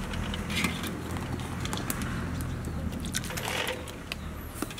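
Boiled quail eggs shifting in a steel pot of cold water, giving scattered light clicks over a steady low hum.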